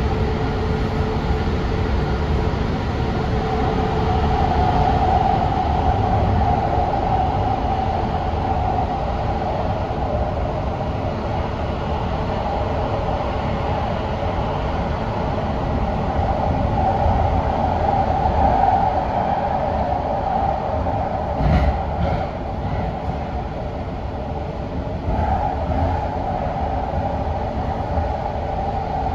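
TriMet MAX light rail train running, heard from on board: a steady rumble of wheels and motors. A single short knock comes about two-thirds of the way through.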